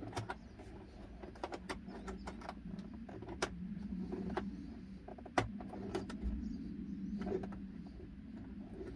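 Scattered light clicks and taps of a 10 mm bolt being threaded by hand into the plastic HVAC box housing of a Jeep Grand Cherokee WJ, over a steady low hum.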